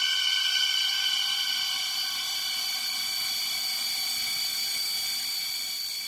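Cold rising ambience sound effect: an airy, hissy drone of several high steady tones layered together, its strongest tone shifting higher as it goes. It is loudest around the first second, then slowly eases off.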